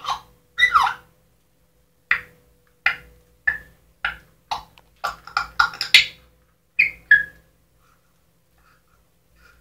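African grey parrot chattering: a run of short, sharp clicks and chirps, coming quicker about five to six seconds in and stopping after about seven seconds.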